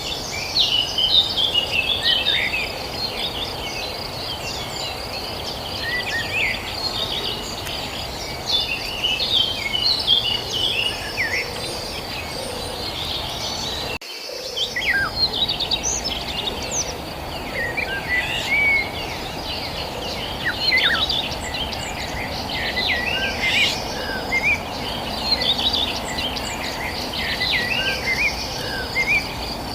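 Many songbirds chirping and twittering over a steady, pulsing insect trill, likely crickets, and a low background rumble of outdoor noise. The sound briefly drops out about halfway through.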